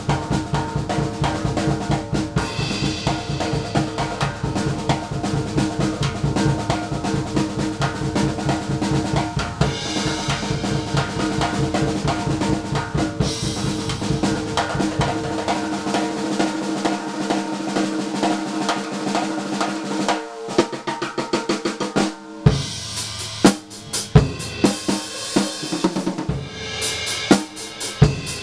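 Drum solo on a Sound Percussion drum kit with cheap stock heads and Wuhan cymbals: fast continuous rolls around the snare and toms with bass drum for about the first half. The low end then drops out, and in the last several seconds come spaced hard hits with cymbal crashes.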